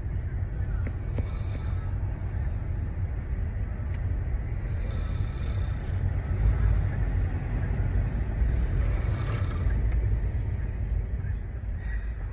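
A person snoring in repeated drawn-out breaths, each a second or two long and a few seconds apart, over a steady low rumble like a vehicle on the move.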